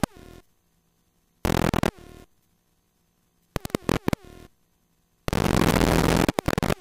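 Light airplane cabin noise, the engine and rushing air, heard over the headset intercom, cutting in and out abruptly as the microphone squelch opens and shuts: four bursts, the last about a second and a half long, with near silence between them.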